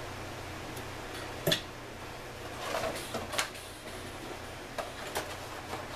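Workbench handling sounds: a sharp knock about one and a half seconds in, then a stretch of rustling and clatter and a couple of light clicks as a roll of gasket paper is picked up, over a steady low hum.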